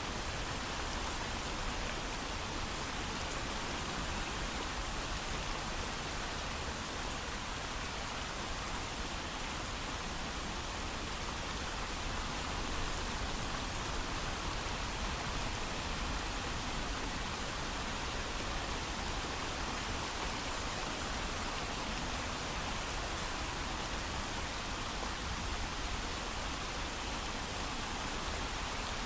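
Steady heavy rain without thunder, an even hiss of falling rain.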